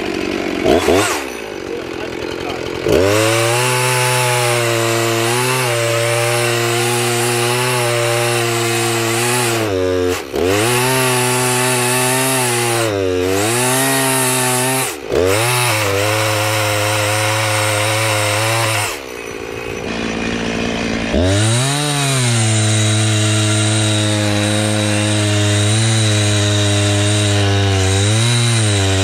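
Chainsaw with a freshly sharpened Power Sharp self-sharpening chain, revving up and cutting through a log at full throttle. The engine pitch sags briefly a few times as the chain bites. About two-thirds of the way through it drops back for a moment, then revs up and cuts again.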